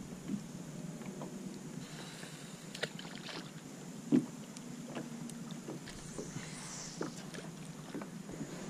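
Faint water lapping against a plastic kayak hull, with a few scattered light clicks and knocks from handling gear in the boat.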